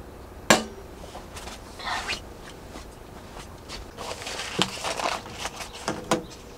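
Gear being packed by hand: clicks, taps and rustles as small hard items are handled and set on a steel camp table and into a fabric pouch. A single sharp knock about half a second in is the loudest sound.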